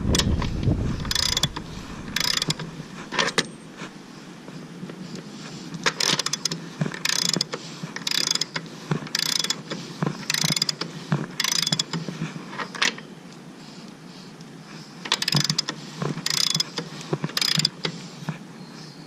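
Socket ratchet wrench clicking in short bursts, about one a second, in three runs with pauses between, as the motorcycle's rear axle and chain adjusters are turned to set the chain slack. A low bump right at the start.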